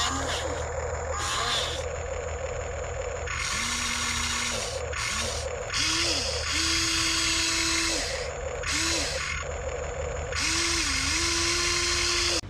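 Huina 1594 RC excavator's electric motors and gearboxes whirring in a series of short runs as the arm and boom are worked. Each run spins up in pitch, holds steady for up to a couple of seconds, then winds down, with the longest runs near the middle and at the end.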